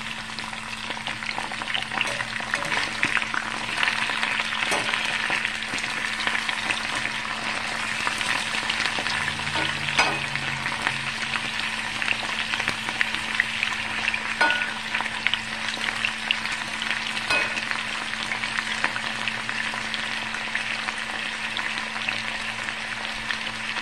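Sliced potatoes sizzling and crackling in hot vegetable oil in a cast-iron skillet as they are tossed and turned, with a few light knocks.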